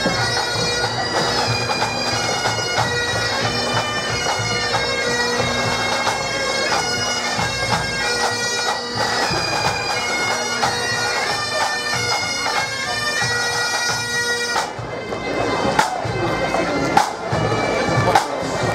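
A pipe band's Highland bagpipes playing a marching tune, the melody notes moving over a steady drone. The pipes cut off abruptly about three-quarters of the way through, leaving a few sharp beats.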